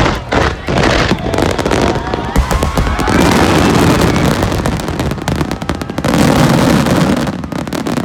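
Fireworks finale: shells bursting in rapid succession, then from about three seconds in merging into one dense, continuous barrage of bangs and crackle.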